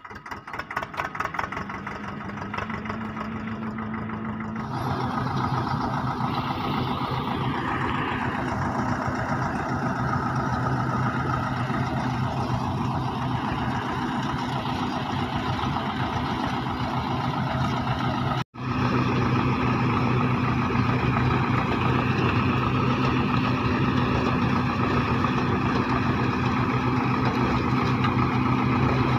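Tractor-driven groundnut thresher running steadily: the tractor engine's hum under the rush of the threshing drum and fan as peanut plants are fed through. Quieter for the first few seconds, then louder.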